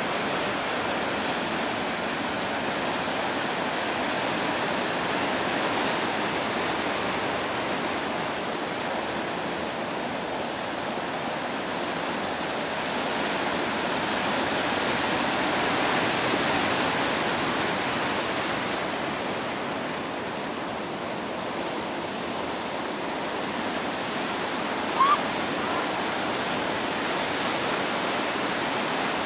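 Ocean surf breaking and washing in as whitewater: a steady rushing noise that swells a little about halfway through and eases after. Near the end comes one brief, sharp rising sound, the loudest moment.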